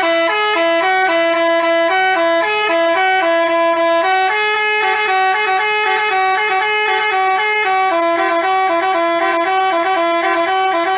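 Basuri telolet bus horn, a multi-tone musical horn, playing a quick tune of short stepped notes, loud and without a break.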